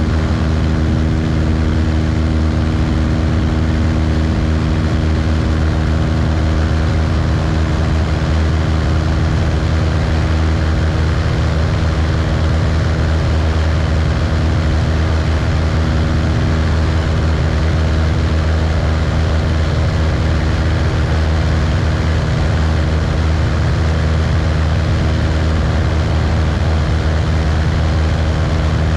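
Cessna 172's piston engine and propeller running steadily in flight: a constant low drone with an even rushing noise over it.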